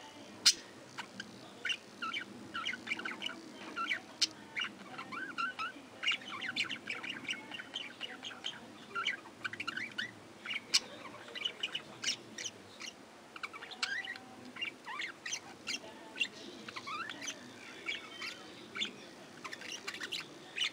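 A group of budgerigars chattering: a steady run of short, quick chirps and warbles, with a few sharp clicks among them.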